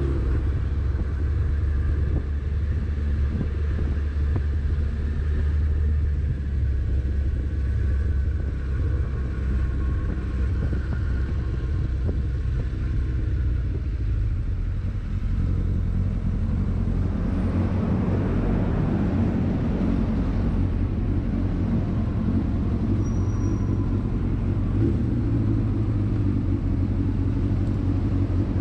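Yamaha FZS600 Fazer's inline-four engine running under a rider at low city speeds, with a steady wind rumble on the camera's built-in microphone.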